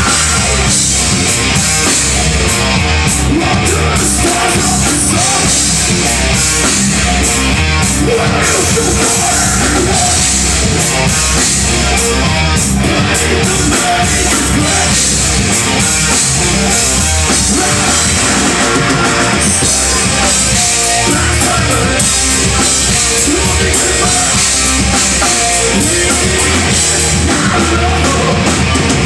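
Live metal band playing loud and without a break: distorted electric guitars, bass guitar and drum kit, with a vocalist.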